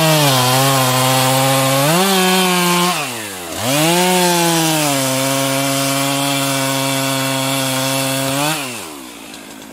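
Stihl two-stroke chainsaw cutting into a standing tree trunk near its base at full throttle, its pitch dropping as the chain bites into the wood. It eases off briefly about three seconds in, revs up and cuts again steadily, then drops back near the end.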